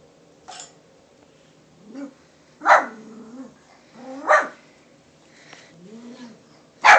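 A puppy barking: three loud, sharp barks spaced a second or two apart, with softer yips before and between them.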